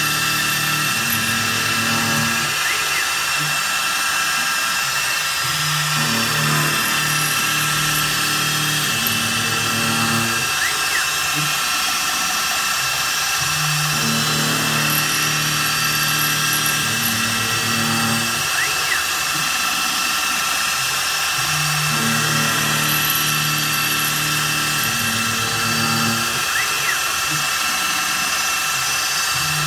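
CNC milling machine's spindle running steadily with an end mill cutting a metal workpiece, while the axis motors whine in pitched tones during feed moves that repeat in a cycle about every eight seconds.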